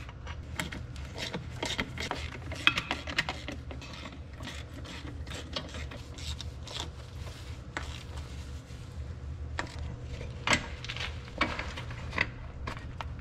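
Hand tools and bolts clicking and clinking against the brake cover of an Oliver 1855 tractor as its bolts are put in, in scattered short clicks with a few sharper knocks, over a steady low hum.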